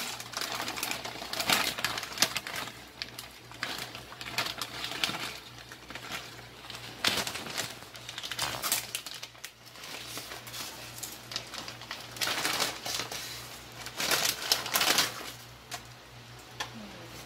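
Plastic spaghetti packet crinkling and being torn open by hand, in irregular bursts, then dry spaghetti sticks tapping against the rim of a metal pot as they go in near the end.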